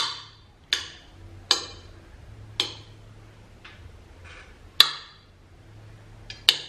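Table knife and fork clinking against a ceramic plate while slicing soft avocado: about seven sharp, short clinks at irregular spacing, roughly one a second.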